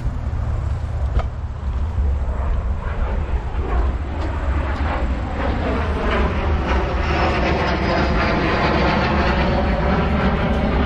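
Airplane flying over, its engine noise swelling from about five seconds in, with a tone slowly falling in pitch, over a steady low rumble.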